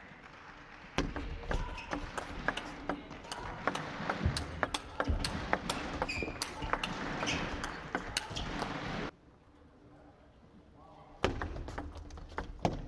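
Table tennis rally: the celluloid/plastic ball struck back and forth by rubber-faced bats and bouncing on the table, a quick irregular run of sharp clicks. The clicks drop away for about two seconds near the end, then another rally starts.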